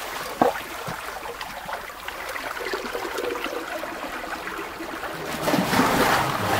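Steady trickling and splashing of running water, with a single short knock about half a second in.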